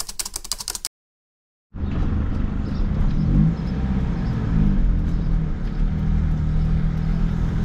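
Van engine running as the van is driven slowly, heard from inside the cab, with a steady low rumble and the engine pitch rising and falling a little a few seconds in. A short burst of rapid clicking comes in the first second, before the engine sound starts.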